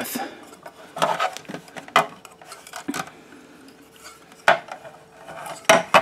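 Hands handling a plastic axial fan and the fume extractor's plastic housing while fitting the earth wire: a handful of sharp clicks and knocks with quieter rubbing between them, over a faint steady hum.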